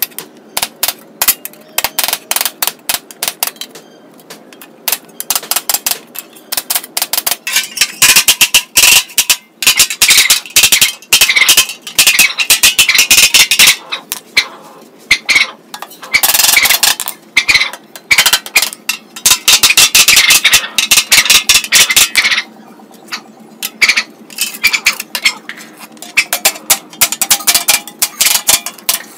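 Claw hammer tapping on the thin sheet-metal panels of a disc player's case, straightening out the bends. The strikes come in fast runs of many taps a second, with a few short pauses.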